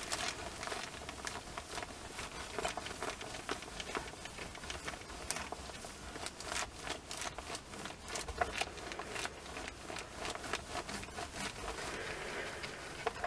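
Clothes iron sliding back and forth over sheets of newspaper, the paper quietly rustling and crinkling with many small scattered crackles.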